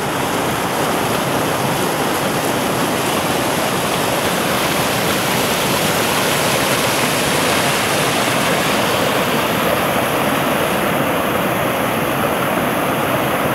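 Mountain stream cascading over rocks close by: a loud, steady rush and splash of water.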